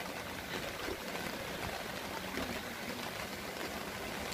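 Steady rain falling on a lake's surface and on the wooden boat, an even hiss.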